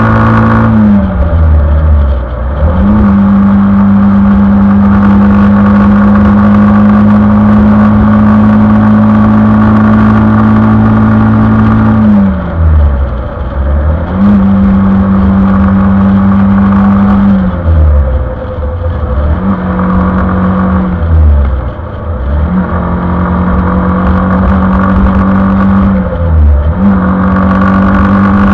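Stock exhaust of a 2020 Suzuki Gixxer 155's single-cylinder engine held at steady highway cruising revs. About six times the engine note drops sharply and climbs back to speed.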